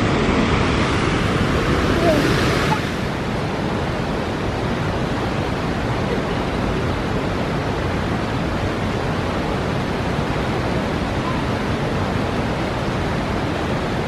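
Steady rush of water from a waterfall: an even wash of noise. It is louder for the first three seconds, then a little quieter and steadier.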